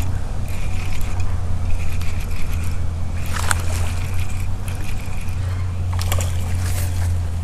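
A spinning reel being cranked as a bass is reeled in, its handle and rotor whirring on and off over a steady low rumble, with a short sharp splash or clatter about six seconds in as the fish comes to the bank.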